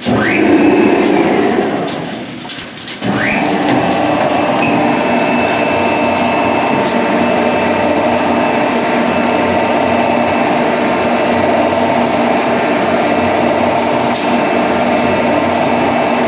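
A rail-type TMR feed mixer starting up. Its drive motor whines up in pitch and runs down again over the first two seconds, then whines up once more about three seconds in and runs steadily while the mixing augers churn chopped hay.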